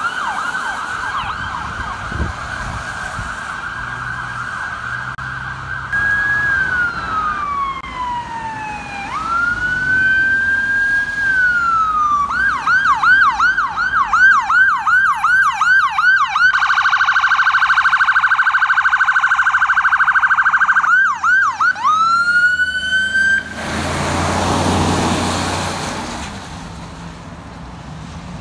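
Ambulance electronic sirens on an emergency run. The siren holds a steady tone, then slowly wails down and up, then switches to a fast yelp at about three cycles a second. It then switches to a very rapid warble, and goes back to yelp and a rising wail that cuts off. A burst of rushing road noise follows near the end.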